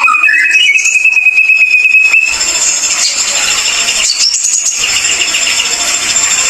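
Ashy drongo singing. A whistle glides up into one long steady note held for about two seconds, then gives way to a fast, high-pitched chatter of rapidly repeated notes.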